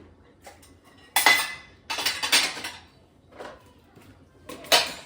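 Dishes and cutlery clattering as they are handled: a sharp clatter about a second in, a short run of knocks around two seconds, and another loud clatter near the end.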